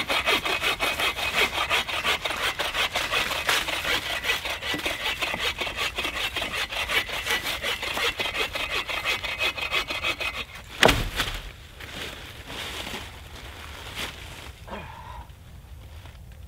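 Hand saw cutting through a dry, fallen hardwood log in fast, steady back-and-forth strokes. After about ten seconds the sawing stops and a single loud crack follows, then quieter rustling in dry leaf litter.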